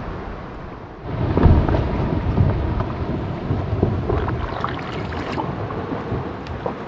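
Columbia Glacier calving: a deep rumble that starts suddenly about a second in and carries on, with crackles running through it as the ice breaks away.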